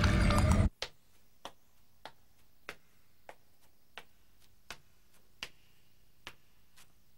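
Loud music cuts off abruptly under a second in, followed by slow, evenly spaced footsteps of shoes on a school corridor floor, about ten clicking steps.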